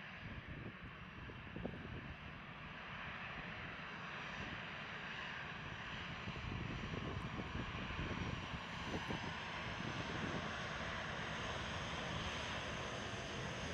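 Boeing 737-800's CFM56-7B turbofan engines at taxi power: a steady jet hiss with a faint high whine over a low rumble, growing a little louder over the first half.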